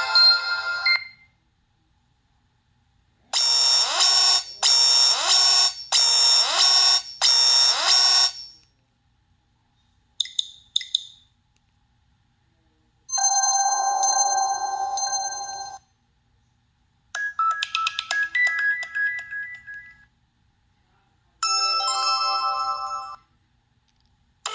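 Nokia 5310's preloaded ringtones and alert tones played one after another through the phone's speaker. Five short electronic melodies, each lasting one to five seconds, are separated by brief silences.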